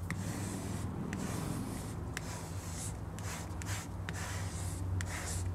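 Hand squeegee rubbing in short, slow strokes across a vinyl decal on wet window glass, pressing the soapy water solution out from behind the vinyl. Each stroke is a brief scraping swish, about one or two a second, over a steady low hum.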